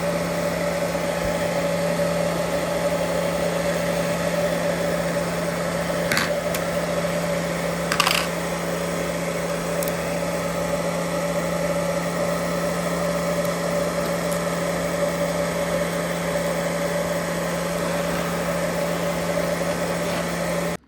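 Electric hot-air blower running steadily, a motor hum with a steady tone, heating the GoPro screen to soften its adhesive. A couple of small clicks come a few seconds apart, and the blower cuts off abruptly near the end.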